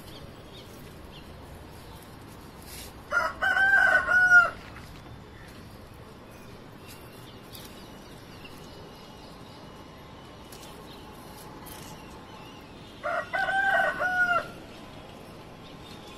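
A rooster crowing twice, about ten seconds apart, each crow a loud call of about a second and a half.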